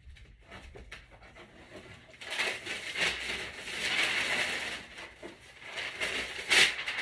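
Tissue paper rustling and crinkling as it is handled for stuffing a gift basket, rising after about two seconds, with a sharp louder crackle near the end.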